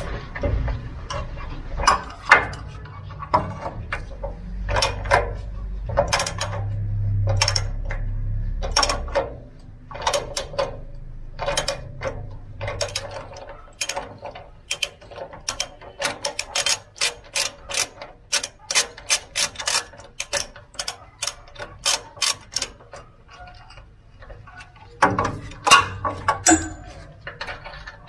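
Ratchet socket wrench clicking as it turns the 17 mm bolt of a rear bump stop mount. The clicks come irregularly at first over a low rumble, then in a fast, even run in the middle, with a few louder knocks near the end.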